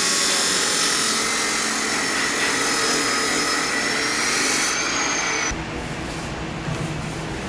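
A power tool running with a steady high whine and hiss, cutting off abruptly about five and a half seconds in, where a quieter, lower rumble takes over.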